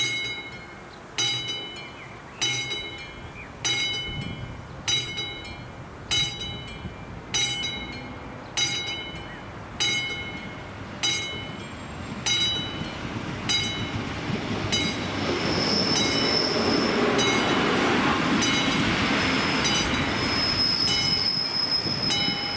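Level-crossing warning bell of an AŽD 71 crossing signal ringing about once every 1.2 seconds. From about 14 seconds in, a passenger train runs over the crossing, its noise building, with two spells of high wheel squeal.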